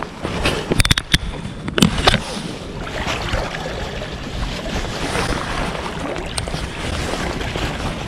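Sea water lapping and washing against rocks, with wind on the microphone, as a steady rushing noise. A few sharp clicks about one second in and again about two seconds in.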